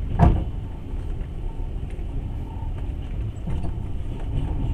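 Passenger train carriage running along the rails, heard from inside the car: a steady low rumble with one sharp knock about a quarter of a second in.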